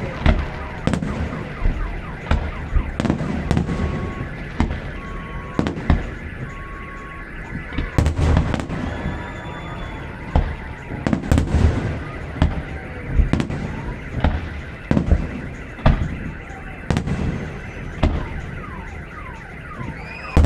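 Fireworks display: shells bursting with booms and crackle one after another, about once a second. A car alarm sounds underneath in steady and on-off tones.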